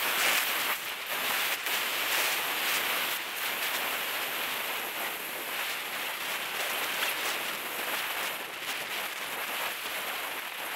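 Steady rushing hiss of wind and tyre noise on rough asphalt, picked up by a helmet-mounted camera on a road bicycle moving at speed, with a few brief knocks in the first few seconds.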